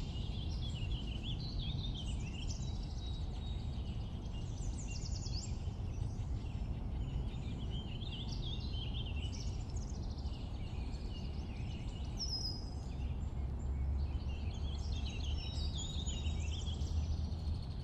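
Songbirds singing, with quick, high chirping phrases recurring every few seconds over a steady low rumble.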